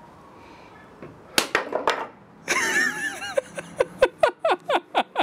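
Claw hammer striking nails into a wooden board: a few separate blows about a second and a half in, then a fast run of about ten quick strikes near the end. A short wavering, pitched, voice-like sound is heard for about a second in the middle.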